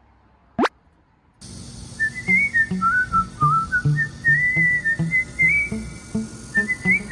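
A brief rising swoop sound effect, then background music starts: a whistled melody over plucked bass notes at a steady, bouncy beat.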